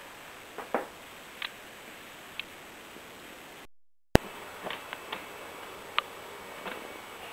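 Quiet room tone with a steady hiss and a few faint clicks and rustles of camera handling. About four seconds in, the sound cuts out for a moment and returns with a single sharp click at a cut in the recording.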